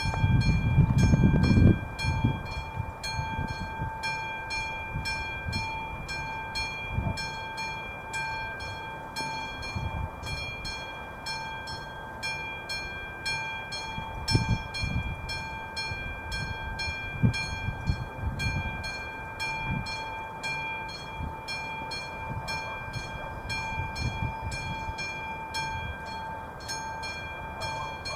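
Electromechanical bell of an AŽD 71 level-crossing warning signal ringing in a steady, regular rhythm of a few strokes a second: the crossing is in its warning state for an approaching train. Under it there is a low rumble, loudest in the first two seconds.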